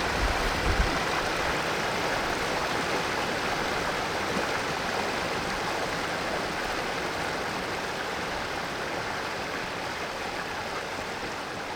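Mountain stream water rushing and splashing over rocks, a steady dense rush. A brief low rumble in the first second, and the sound slowly fades a little toward the end.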